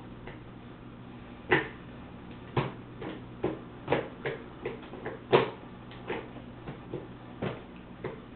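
Irregular light knocks and taps of a plastic bowl and fingers against a plastic high-chair tray as a child picks up food, about fifteen in all, some sharper and louder than others.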